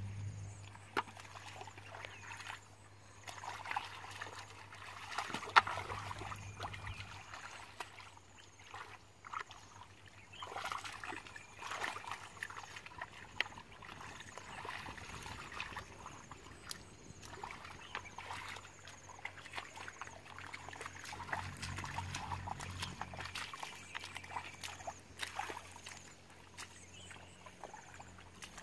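Muddy water sloshing and splashing in irregular small bursts, with trickles and drips, as hands grope through a shallow muddy pool for fish.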